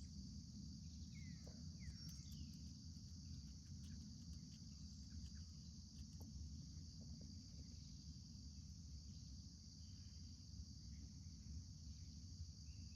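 Faint, steady high-pitched drone of an insect chorus, crickets or similar, over a low rumble, with a couple of faint falling bird chirps between about one and two seconds in.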